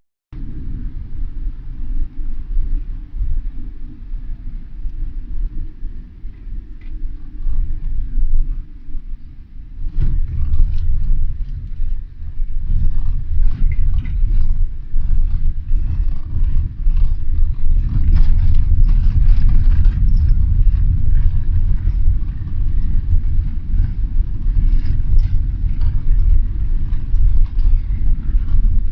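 Road noise and engine rumble inside a moving car's cabin. About ten seconds in it gets louder, with frequent short knocks and rattles, as from a rougher road surface.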